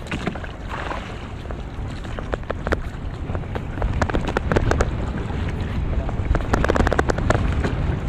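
Wind on the microphone and splashing water, with many short clicks and knocks as a wet gill net is hauled aboard a small boat by hand; the clicks grow busier about halfway through.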